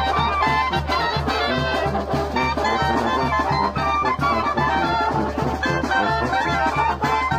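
Upbeat music with an evenly repeating bass beat and a melody line playing over it.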